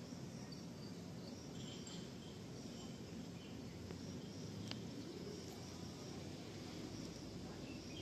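Faint outdoor garden ambience: a low steady rumble with soft, high chirping that comes and goes, and a single small click about halfway through.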